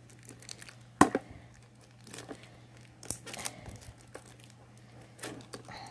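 Packaging of a small boxed set of baby art cards being torn open and crinkled by hand: scattered rustles and clicks, with one sharp snap about a second in.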